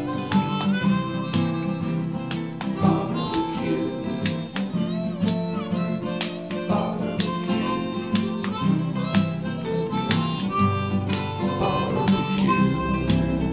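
Background music: a harmonica playing held, bending notes over a plucked guitar.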